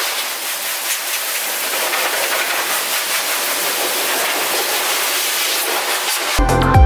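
A steady, even hiss of noise with no tone in it, then electronic music with a beat cuts in near the end.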